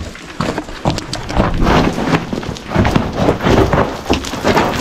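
Footsteps crunching and scraping over loose rock and gravel on a tunnel floor, a quick, uneven run of steps.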